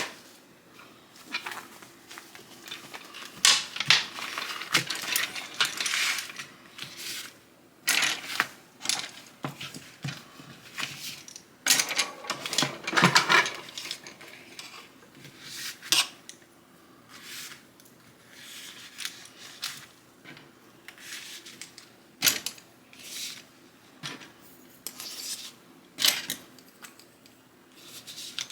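Makeup brushes and their packaging being handled: irregular rustling with light clicks and clatter from the brush handles.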